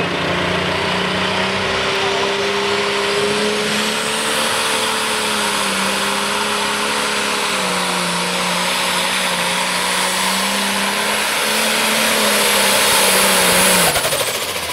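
Turbocharged diesel engine of an International pulling tractor at full throttle as it drags the weight-transfer sled, holding a steady high note with a high turbo whistle over it. The engine note drops away near the end as the throttle comes off.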